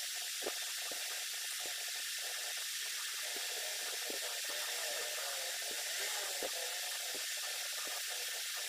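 A steady hiss, with scattered soft clicks and taps from fried fish being picked apart by hand on a plate.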